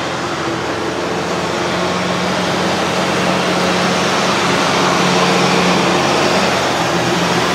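Kubota M62's turbocharged four-cylinder diesel engine running steadily, its note rising slightly about two seconds in and dropping back a little near the end.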